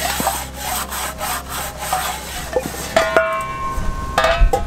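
A handful of grass and leaves scraped around the inside of a metal frying pan in quick repeated strokes, a dry rubbing scour. About three seconds in the pan clinks and rings briefly, and rings once more near the end.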